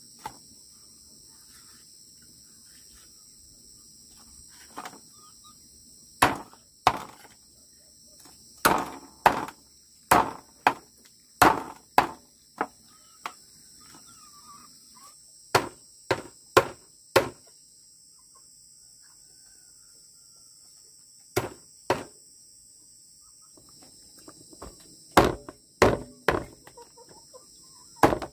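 A large knife chopping a raw chicken into pieces on a wooden chopping block: sharp whacks in bursts of several quick strokes with pauses between. A steady high insect chirring runs behind.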